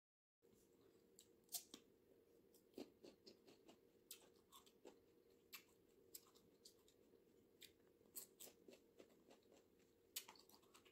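Very faint closed-mouth chewing of fruit, heard as scattered soft clicks and mouth smacks over a low room hum.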